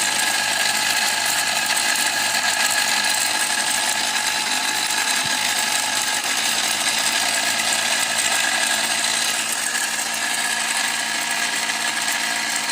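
12 V DC solar mixer grinder running flat out, its blades spinning in the small jar grinding dry without water, a loud steady motor whine.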